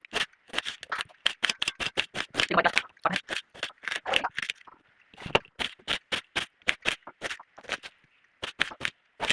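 Kitchen knife chopping onion finely on a cutting board: quick, irregular strikes of the blade on the board, about three to four a second.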